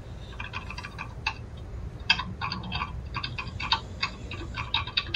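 Typing on a keyboard: quick, irregular key clicks, several a second in short runs, over a low steady hum.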